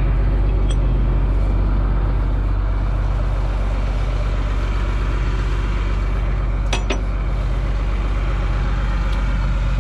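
John Deere 4555 tractor's six-cylinder diesel engine idling steadily. A single sharp click comes about seven seconds in.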